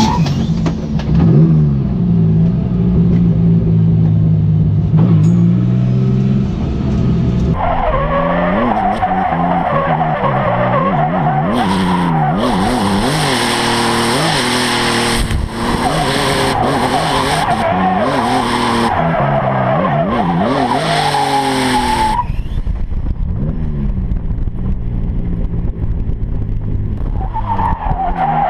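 A BMW drift car's engine revving hard while its rear tyres spin and squeal through a drift. The engine holds one pitch for the first several seconds, then rises and falls rapidly under loud tyre noise, which eases off about three-quarters of the way through.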